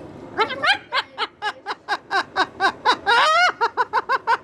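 Umbrella cockatoo imitating human laughter: a rapid string of short pitched 'ha' notes, about five a second, broken about three seconds in by one longer call that rises and falls.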